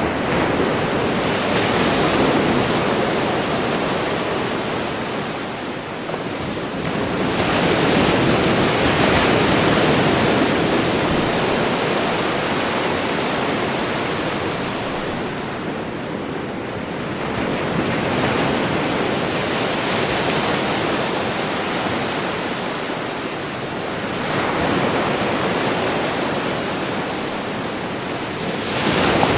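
Sea waves breaking and washing up a beach, the surf swelling and easing in long surges every several seconds.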